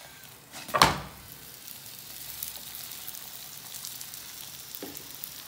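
A paratha is turned over in a nonstick frying pan, with a sharp thump about a second in, then it sizzles steadily as it fries in ghee.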